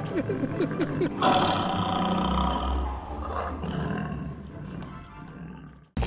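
Tiger roaring: a long roar starting about a second in that slowly fades away.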